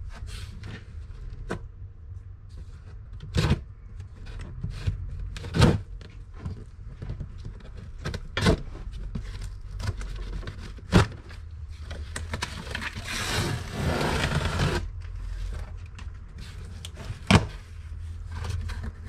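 A cardboard shipping box being cut open by hand, with a utility knife slicing along the packing tape. Scattered sharp knocks and taps on the box, and a couple of seconds of scraping and tearing past the middle, then the flaps are pulled open.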